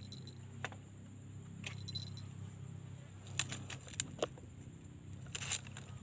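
Small wire-mesh and wooden bird trap cage being handled: scattered sharp clicks and light rattles of the wire and frame, bunched together near the middle and again near the end, over a steady low hum.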